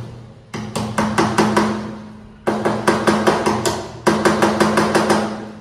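Hammer tapping a nail into a wooden door frame: three runs of quick blows, about five a second, with short pauses between them.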